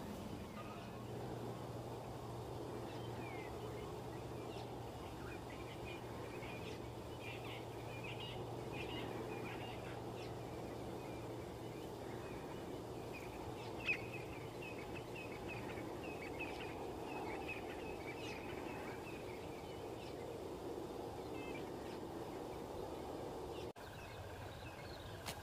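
Bush ambience: many short chirps from small birds over a steady haze of background noise. A low steady hum runs under it and stops about two-thirds of the way through, with a single sharp click near the middle and a brief drop-out near the end.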